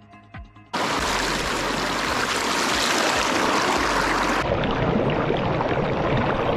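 Shallow rocky stream rushing and splashing over stones, loud and close, with the camera held at the water's surface. It cuts in suddenly about a second in, after faint background music.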